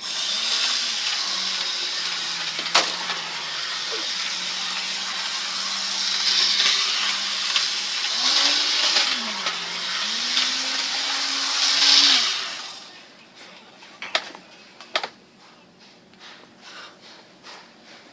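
A small motor running with a loud hiss, its hum wavering up and down in pitch, then winding down after about twelve seconds; two sharp clicks follow.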